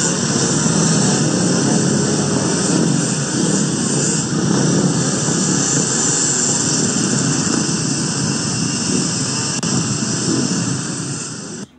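Loud, steady mechanical drone of small motors with a constant hiss, unbroken throughout.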